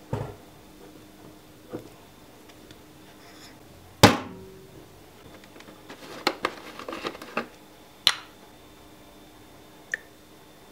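Kitchen handling sounds: a soft knock at the start and a loud sharp knock about four seconds in, then a run of small crackling clicks as the plastic screw cap of a milk jug is twisted, ending in a sharp click as it comes off.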